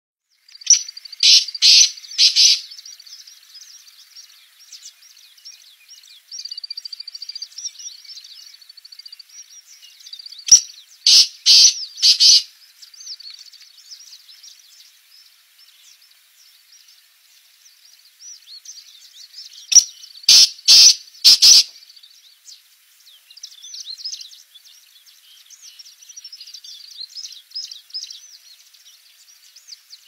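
Black francolin calling: three loud, harsh phrases of four or five quick notes each, about ten seconds apart, over a steady background of smaller birds chirping.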